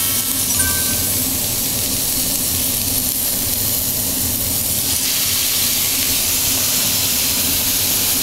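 Iberico pork rib meat sizzling on a hot griddle pan over a portable gas burner: a steady hiss as strips of meat are laid on the hot plate.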